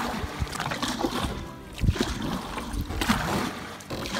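Canoe paddle strokes in river water: irregular splashes and drips as the blade dips and pulls, with wind buffeting the microphone.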